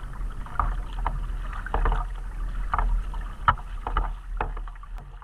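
Kayak paddle strokes dipping and splashing in calm lake water, a stroke about every half second to second, over a steady low rumble.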